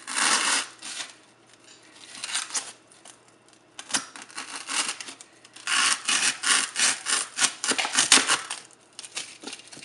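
Knife sawing through a styrofoam ball, back-and-forth cutting strokes in several bursts, with the longest run of quick strokes in the second half.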